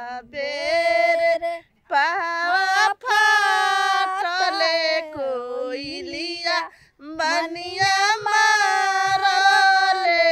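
A high solo voice singing a slow melody in long held, wavering notes, in phrases with short breaths between them.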